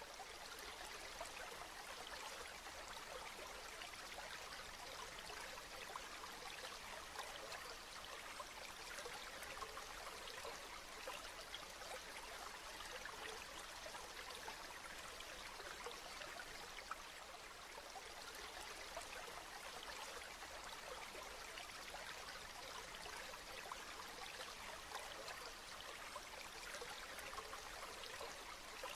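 Steady rain falling, an even, unbroken hiss of many small drops.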